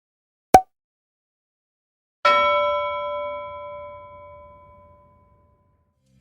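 A short sharp click, then a single bell-like ding about two seconds in that rings out and fades away over about three seconds.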